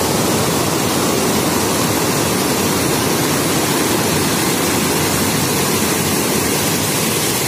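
Steady, loud rush of fast-flowing water, like a mountain stream or waterfall heard close up.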